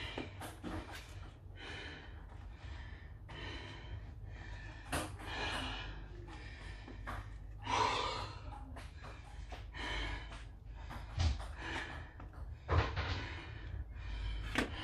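A woman breathing hard in loud gasping breaths, about one a second, catching her breath after a set of six-count burpees.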